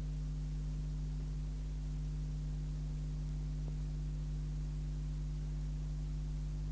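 Steady low electrical hum made of several constant tones, with a faint hiss over it.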